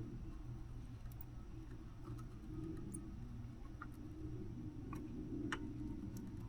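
Soldering iron and solder touching the pins of a circuit-board connector: a handful of small, sharp ticks scattered over a steady low hum.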